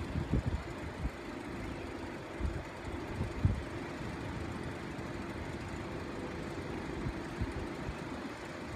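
Wind buffeting the microphone in irregular low gusts, over a steady low hum.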